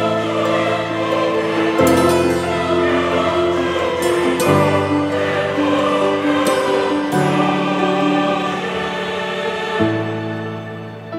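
Background music: sustained choral voices over held chords that change about every two seconds.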